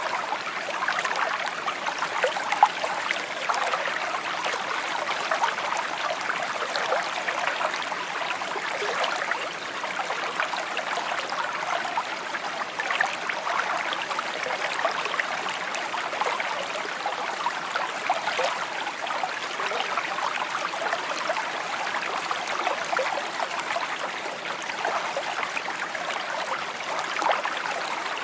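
Shallow stream babbling and trickling over stones, a steady, continuous burble of water.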